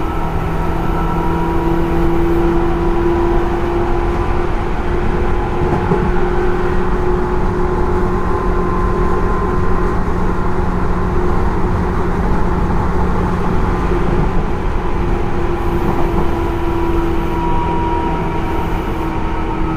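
Tobu 10030 series field-chopper-controlled electric train running: a steady rumble of wheels on rail with a sustained motor and gear hum in a couple of even tones that drift slightly in pitch.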